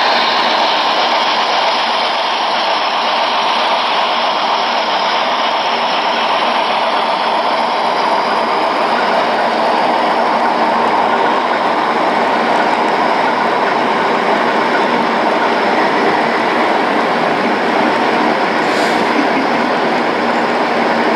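Model train running on the layout track: a steady mechanical rolling sound that holds at an even level, with a short high hiss near the end.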